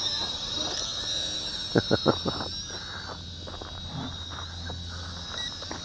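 Bolon K901 Steel Ranger quadcopter's tiny motors whining at a high pitch, the pitch sliding up and down as the throttle changes. Three sharp knocks come close together about two seconds in.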